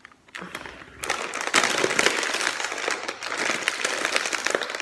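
A Lay's chip bag being pulled open by hand, its plastic crinkling and crackling loudly from about a second in.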